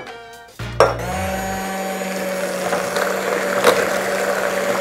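Electric hand mixer switched on about a second in and running steadily, its beaters whirring through thick waffle batter in a glass bowl.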